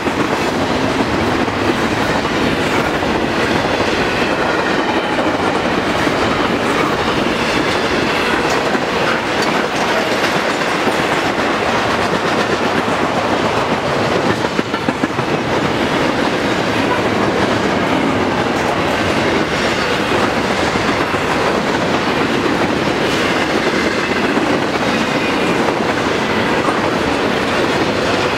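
Double-stack intermodal well cars loaded with shipping containers rolling past: a steady, loud rumble of steel wheels on the rail, with repeated clicks as the wheels cross the rail joints.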